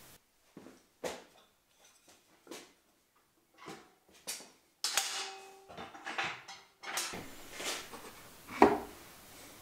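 Irregular knocks and light clatter of wooden-handled carving chisels and a tool case being handled on a wooden workbench, with the loudest knock near the end as a chisel is drawn from its wooden rack.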